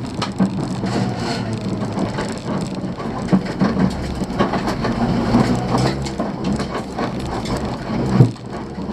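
Inside a rally Honda Civic on a gravel stage: the 1.3-litre twin-carburettor engine running under way while loose gravel rattles and pings against the underbody, with one sharper knock near the end.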